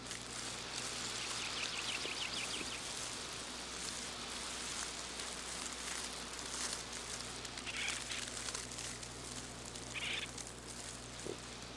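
Outdoor nature ambience: a steady crackling hiss, with a rapid chirping trill between about one and three seconds in and two short chirps later on.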